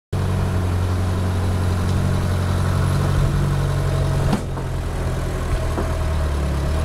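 JCB 1CX compact backhoe loader's Perkins 404D four-cylinder diesel idling steadily. About four seconds in there is a sharp click, after which the engine sounds a little quieter.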